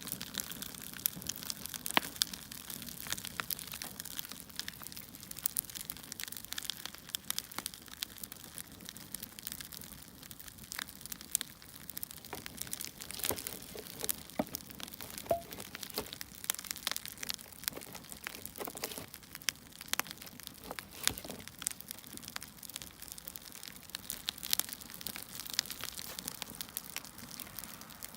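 Crackling wood-fire sound: a soft steady hiss with many irregular pops and snaps.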